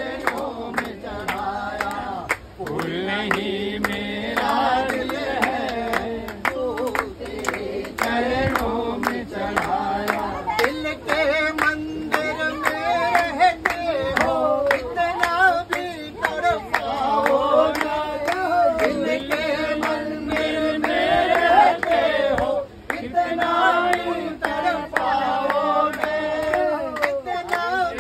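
A group singing a Hindi devotional bhajan together, with steady rhythmic hand-clapping keeping the beat.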